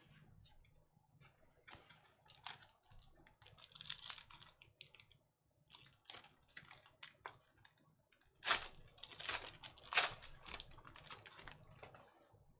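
Trading cards being handled: a run of quick, papery clicks and rustles as cards are slid and flipped through the hands, loudest about two-thirds of the way in.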